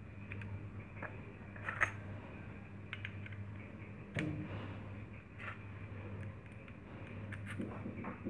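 Scattered small metallic clicks and taps as trigger parts are handled and fitted onto a CNC-machined PCP air rifle chamber, over a steady low hum.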